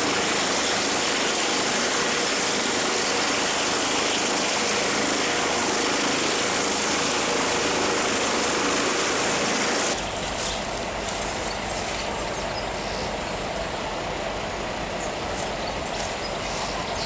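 A rescue helicopter's engine and rotors running with a loud, steady hiss for about ten seconds. It then cuts off suddenly to quieter outdoor noise carrying a steady low hum and a few faint ticks.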